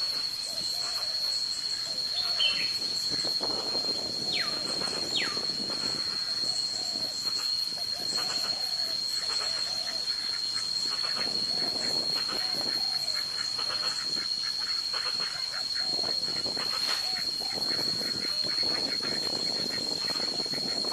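Marsh ambience: a steady high-pitched whine throughout, with many short low calls repeating over it and two falling whistles about four and five seconds in.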